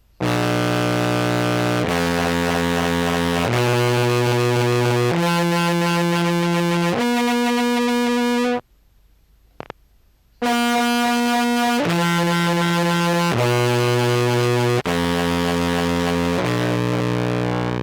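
Contrabass clarinet played through a KMA Horizont and Jackson Audio Modular Fuzz, giving a thick, distorted, synth-like tone. It plays five long held notes stepping upward, pauses, then five stepping back down.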